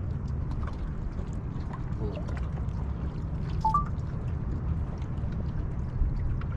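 Water lapping and gurgling against a small boat's hull over a steady low rumble, with a short two-note rising chirp about three and a half seconds in.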